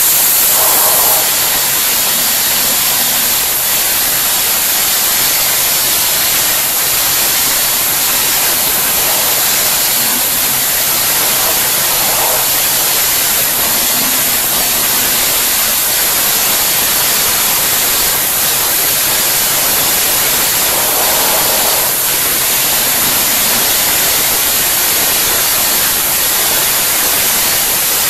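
Sandblaster nozzle blasting abrasive against a kiln-fired clay pot, stripping its outer surface: a loud, steady hiss of compressed air and sand that does not break.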